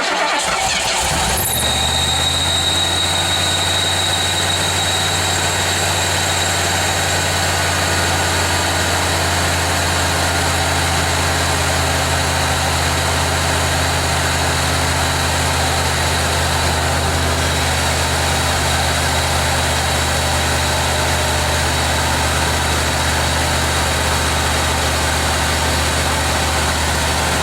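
Freshly overhauled 1987 Ford Bronco engine idling steadily just after starting, with a thin high whine over it for the first several seconds.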